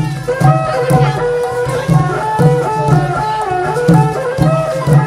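Cambodian chhayam ensemble playing: drum beats about twice a second under a melody of held notes that step up and down, with sharp percussive strikes over the top.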